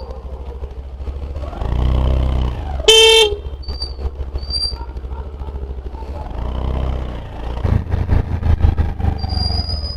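Steady engine and road drone of a ride through traffic, swelling twice as vehicles pass. A vehicle horn toots once, briefly, about three seconds in.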